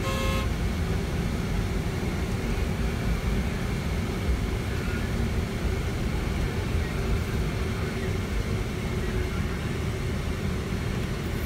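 Airport apron noise: a steady low engine rumble, with a short beep right at the start.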